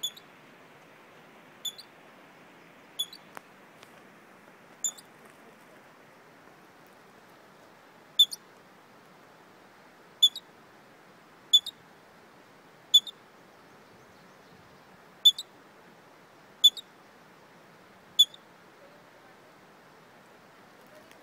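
Squirrel giving short, sharp, high-pitched chirps, about eleven of them at irregular intervals of one to three seconds, each followed at once by a fainter second chirp; the uploader takes them for hiccups. A steady faint hiss lies under them.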